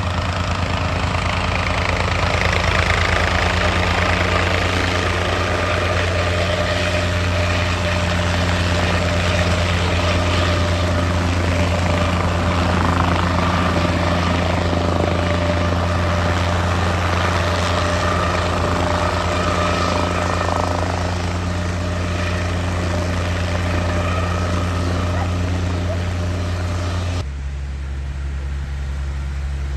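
Guimbal Cabri G2 light helicopter in a low hover close by, its rotor and piston engine making a steady, loud drone. About three seconds before the end the sound switches abruptly to a quieter, lower steady hum.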